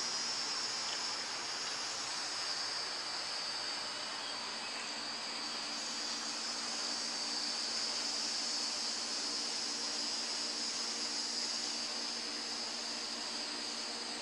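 A steady chorus of insects chirring, high-pitched and unbroken, with a faint low hum beneath it.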